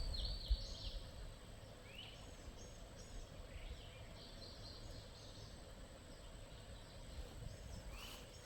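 Small birds chirping: scattered short high calls and a few quick upward-sweeping notes, over a faint low rumble.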